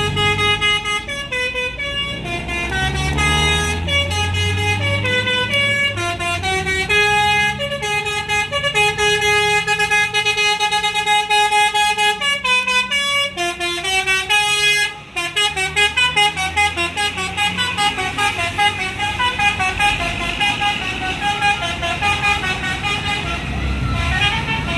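Bus telolet horn playing a long melody of stepped notes over the bus's engine, with a brief break about fifteen seconds in before the tune goes on with quicker, choppier notes.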